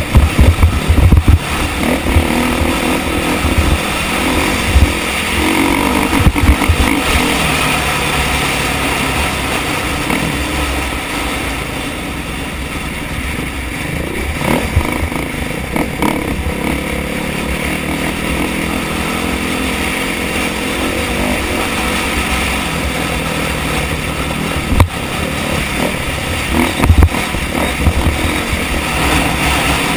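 2013 KTM 500 EXC's single-cylinder four-stroke engine running under load on a trail ride, its note rising and falling with the throttle. Heavy low rumble and thumps from wind and bumps on the helmet camera's microphone, strongest in the first two seconds and again near the end.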